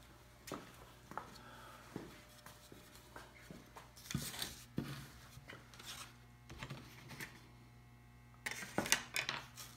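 Wooden model parts and a paper template being handled on a workbench: scattered light knocks and clicks of wood set down and picked up, with rustling that comes and goes, twice thicker for about a second. A steady low hum runs beneath.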